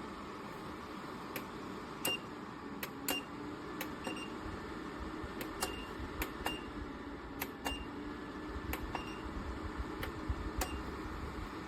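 Electric fan heater running with a steady airy noise and a faint wavering hum, with about a dozen irregular sharp clicks throughout.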